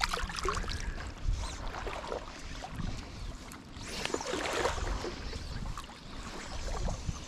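River water sloshing and splashing close by, stirred by a hand releasing a smallmouth bass at the surface, with irregular trickles and small splashes over a low rumble of wind on the microphone.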